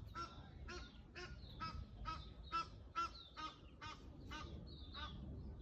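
Geese honking repeatedly, about two short calls a second, with a higher, thinner bird call near the end.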